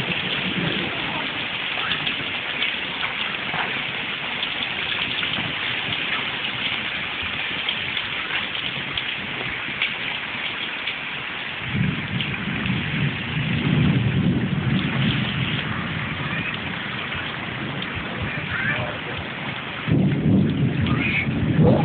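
Heavy rain pouring down in a steady hiss, with thunder rumbling for several seconds from about halfway through and again near the end.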